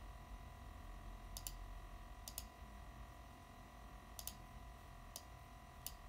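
MSI GS65 laptop's cooling fan running faintly with a steady thin whine. Five short, sharp clicks come at uneven intervals over it, some of them doubled.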